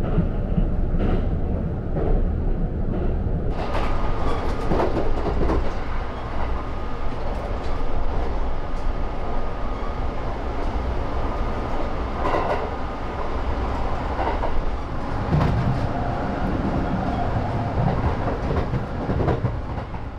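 Kintetsu limited express train running, heard from inside the car: a steady rumble with the wheels clicking over rail joints. It turns brighter and hissier about three and a half seconds in, and fades near the end.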